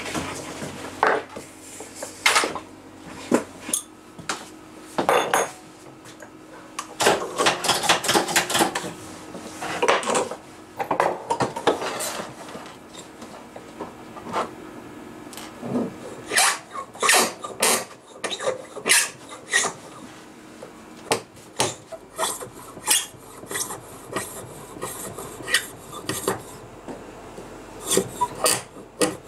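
Hand-held cutting tool scraping against a fountain pen barrel on a small lathe, shaving the screw-thread grooves that the cap screws onto. It goes in irregular runs of short rasping strokes with pauses between them.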